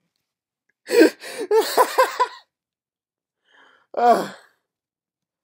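A man laughing hard. A loud burst about a second in breaks into a quick run of 'ha' pulses, and a shorter laugh follows near four seconds in.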